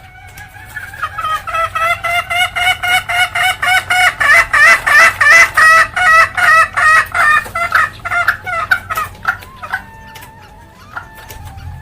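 Junglefowl hen giving a 'ngekek' cackle: a fast run of sharp repeated calls, about five a second, that builds to a loud peak and then tails off. This hen cackle is the call used as a lure to make wild junglefowl answer.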